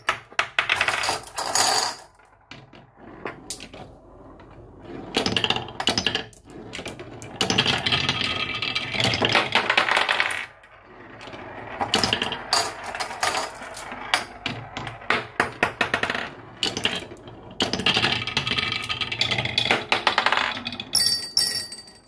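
Glass marbles rolling and clattering down a wooden marble run, rattling back and forth through a zigzag wooden slope track and clicking against wooden blocks. The sound comes in bursts of rapid clicks and longer rolling runs a few seconds each, with brief quieter gaps between marbles.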